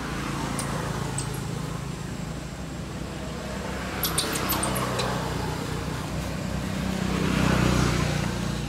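Background road traffic: passing vehicles swell up and fade away one after another over a low steady rumble, the loudest near the end. A few short high chirps come about four seconds in.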